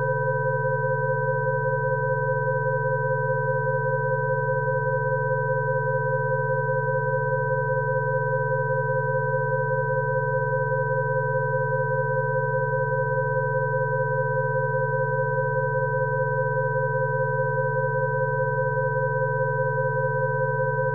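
Electronically generated Rife frequency tones: several steady sine tones sounding together, a low hum beneath a cluster of mid-pitched tones and two higher whistle-like tones, with no change in pitch or loudness.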